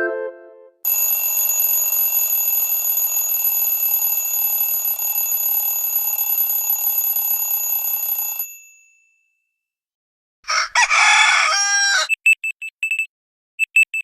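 Android phone tones played one after another: a steady ringing tone for about seven seconds, then a rooster crow about ten seconds in, then quick groups of short high electronic beeps near the end.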